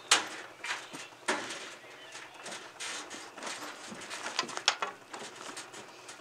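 Irregular clanks and knocks from a compact diesel tractor being unloaded from a trailer by hand, with its engine not running because the battery is dead. The loudest knock comes right at the start.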